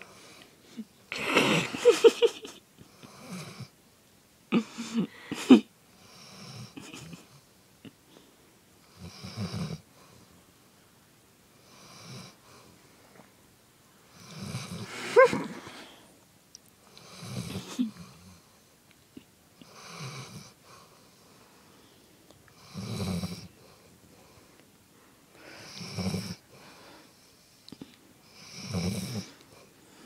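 A dog deeply asleep and snoring, worn out after agility, with a rasping snore on each breath about every three seconds. The snores are loudest and come more irregularly in the first few seconds, then settle into an even rhythm.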